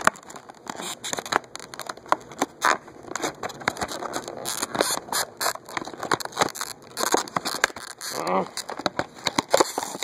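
Product packaging being wrestled open by hand, crackling, crinkling and scraping in a dense run of irregular clicks.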